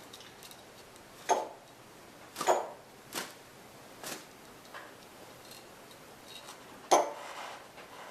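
Sharp, irregular clicks and knocks, about six over eight seconds, with the loudest a little over a second in, about two and a half seconds in, and near the end.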